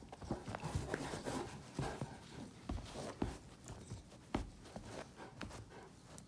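Irregular soft knocks, taps and rustling as an 8-week-old Great Dane puppy squirms and plays on a fabric couch with a person's hand.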